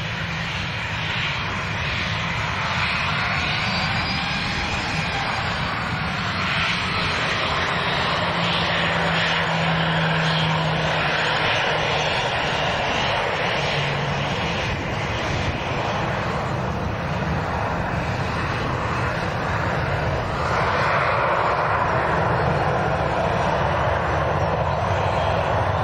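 Boeing 737 jet engines running steadily as the airliner taxis and turns to line up on the runway for take-off, getting a little louder about 20 seconds in.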